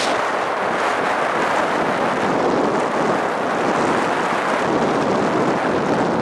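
Steady rushing noise of strong wind on the microphone mixed with breaking surf.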